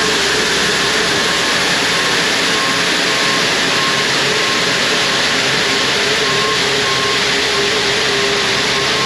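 Manitou telehandler running hard while its brush bucket sweeps wet concrete, a loud steady mix of engine and brush noise. A faint short beep repeats at even spacing.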